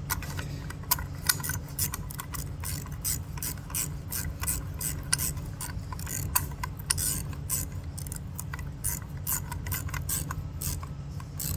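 Ratchet wrench clicking in quick, uneven runs as bolts are tightened, over a steady low hum.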